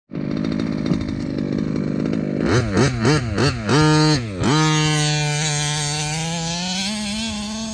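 Two-stroke gas engine of a Rovan Baja 5B RC buggy running steadily, then revved in about five quick throttle blips a little over halfway through the first half, then held at a steady speed with its pitch slowly climbing.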